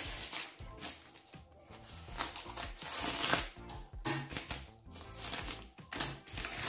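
Plastic parcel packaging crinkling and rustling in irregular bursts as it is handled and torn open, over quiet background music.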